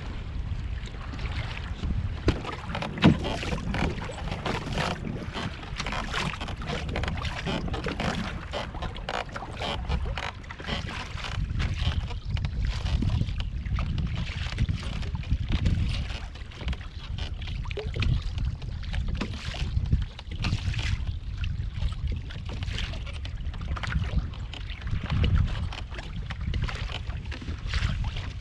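Wind buffeting the microphone with a steady rumble, while choppy water slaps and splashes against a kayak's hull. One sharp knock about three seconds in.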